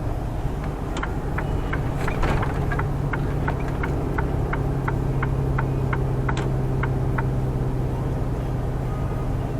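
Truck engine running, heard from inside the cab. A turn-signal relay clicks steadily about three times a second from about a second in, then stops about two seconds before the end, as the truck pulls over to stop.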